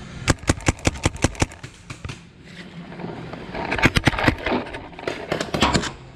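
Paintball markers firing in rapid bursts: about a dozen sharp shots in the first second and a half, then two shorter volleys later on.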